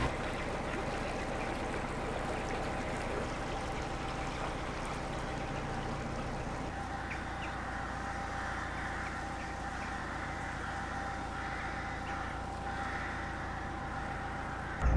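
Crows cawing repeatedly in the second half, over the steady low hum of the narrowboat's engine as it cruises.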